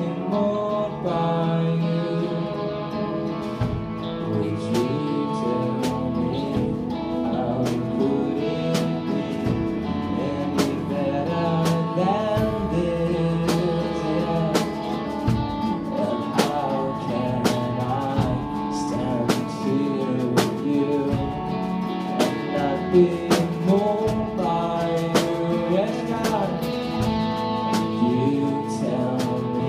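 Live band playing a worship song: electric guitars and a drum kit with a steady beat of drum hits, and a singing voice over them.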